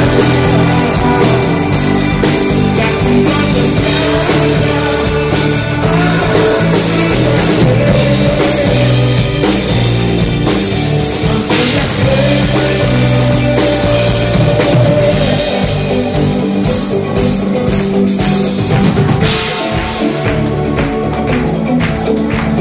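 Live rock band playing a song, with drum kit, guitars and keyboards under a male lead vocal sung into a microphone. Near the end the cymbals thin out and the drums beat out separate, even hits.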